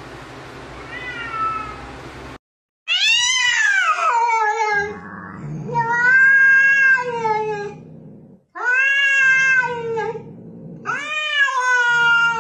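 A cat meowing four long, drawn-out times, about two seconds each, each call rising and then falling in pitch, with short pauses between them.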